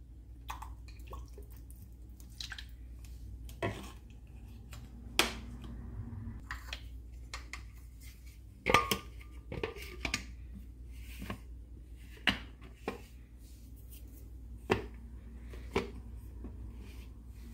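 Scattered light knocks and clicks of a plastic bottle, its flip cap and a glass blender jar being handled on a stone counter, over a low steady hum. The blender motor is not running.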